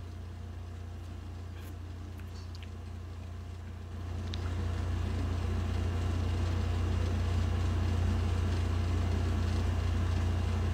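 Steady low background hum, growing louder about four seconds in, with a few faint ticks in the first seconds.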